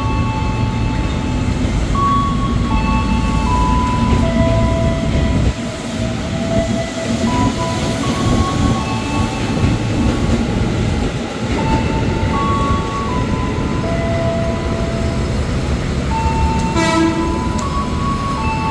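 A JR 205-series electric commuter train pulls out past the platform with a steady rumble of wheels on rail. Over the rumble its motors give a series of steady tones that jump from pitch to pitch every second or so. A short horn blast sounds near the end.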